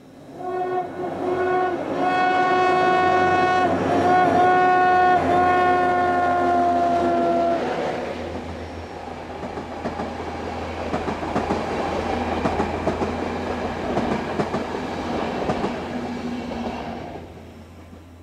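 A passenger train sounds its horn in one long blast, broken twice briefly, its pitch sagging slightly as it ends. The train then rolls across a stone arch bridge, its wheels clicking over the rail joints, and the sound fades away near the end.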